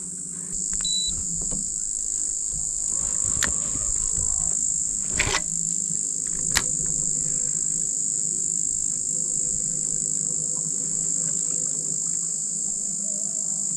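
Insects buzzing in a loud, steady, high-pitched drone, with three short sharp clicks in the middle and a faint low hum underneath.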